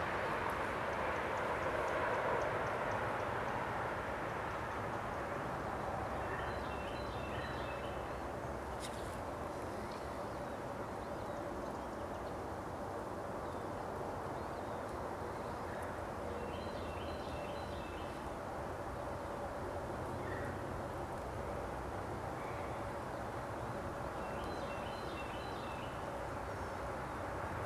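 Steady rushing outdoor background noise, with a bird's short high call or song phrase three times, about ten seconds apart.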